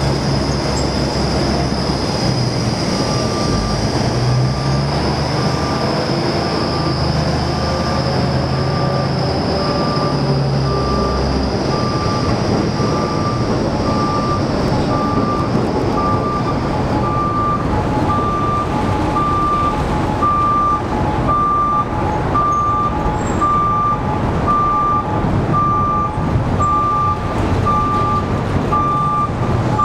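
Diesel work locomotive's engine running while it tows retired subway cars, with a high whine, both fading away about halfway through. From about three seconds in, a back-up alarm beeps steadily, about once a second.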